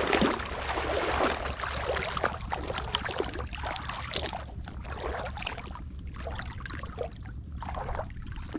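Lake water splashing and sloshing irregularly as a fishing net is let out into the shallows. The splashes come thick and fast at first and grow sparser in the second half.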